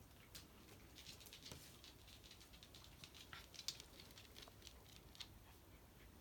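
Faint, irregular light clicking and tapping, with one sharper click about three and a half seconds in.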